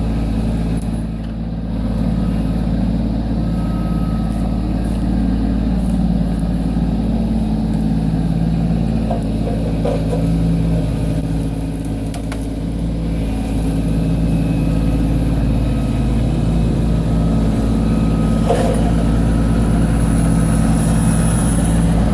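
Kubota B2601 compact tractor's three-cylinder diesel engine running steadily, with a brief dip in loudness about a second and a half in.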